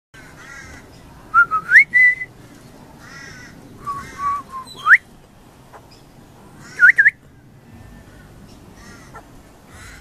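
Young pied butcherbird singing: short, loud rising whistled notes in three brief phrases, about one and a half, four and seven seconds in, with softer, rougher calls in between.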